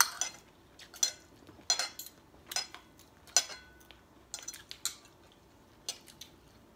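Metal spoon clinking and scraping against a ceramic dinner plate, scooping up leftover food: sharp, separate clinks about once a second at irregular intervals, fading out near the end.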